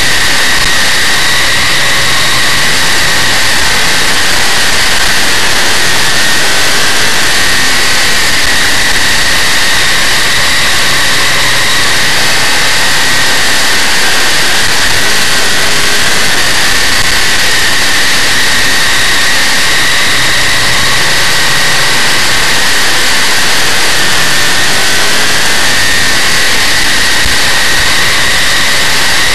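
Big-block Chevrolet V8 of a dirt modified race car at racing speed, heard from a camera mounted on board. The engine and wind make a loud, steady noise that overloads the microphone, with a high steady whine on top.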